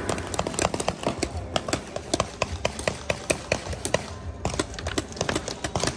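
Many quick, irregular pops and snaps, several a second, with no steady rhythm: guns being fired in a paintball-style shootout game.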